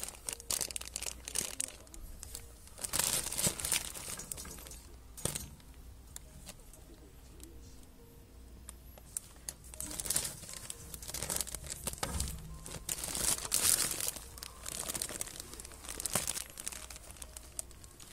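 Thin plastic bags and the plastic wrap of a pack of toilet rolls crinkling and rustling in irregular bursts as a cat scrambles among them and the pack is shifted about.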